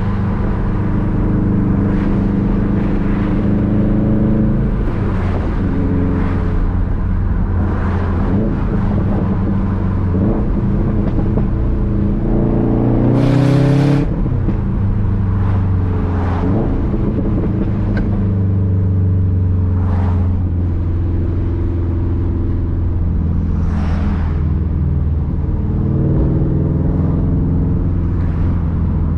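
Subaru WRX STI's turbocharged flat-four running under way with its uneven boxer rumble, the revs climbing and dropping through gear changes. About 13 seconds in it revs up hard, with a short loud hiss from the turbo's external wastegate at the top.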